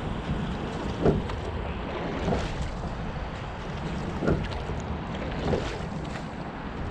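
Single racing scull being rowed at a steady, light rate: water washing along the hull with some wind on the microphone, and a short knock from the oars twice each stroke, the strokes coming about every three seconds.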